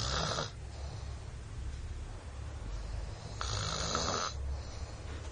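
A person snoring loudly: one snore fades out within the first half-second, and the next comes about three and a half seconds in, lasting about a second.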